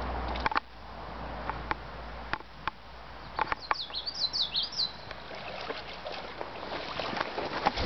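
Bull moose wading through shallow lake water, its legs splashing and sloshing in short irregular bursts. A small bird chirps a quick run of notes about four seconds in.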